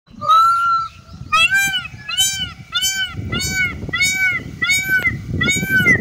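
Indian peafowl (peacock) calling: one long call, then a quick run of seven rising-and-falling calls, about three every two seconds.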